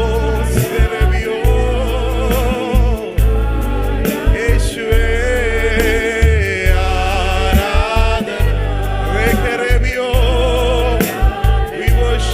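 Malayalam Christian worship song with voices singing over a band, with a pulsing bass and steady percussion.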